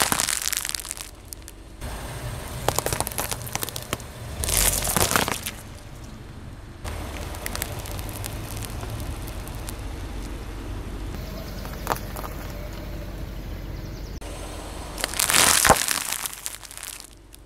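Car tyre rolling slowly over small objects and crushing them. There are several separate bursts of crackling and crunching: one at the start, two around three and five seconds in, a single crack near twelve seconds, and a loud one near the end.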